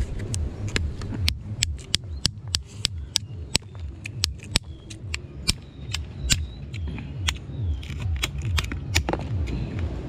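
Cooked land crab shells being cracked and picked apart by hand and with a knife: many sharp, irregular clicks and cracks, a few a second, over a steady low rumble.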